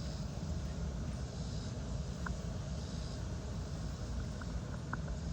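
Steady low outdoor rumble with three or four faint, very short high chirps scattered through it.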